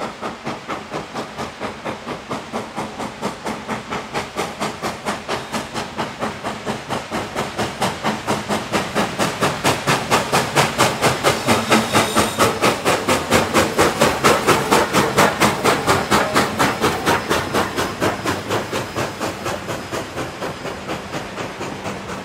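Reading T-1 4-8-4 steam locomotive No. 2102 working hard, its stack talk a rapid, even run of exhaust chuffs. It grows louder as the engine approaches and passes, is loudest about two-thirds of the way through, then fades as the cars roll by.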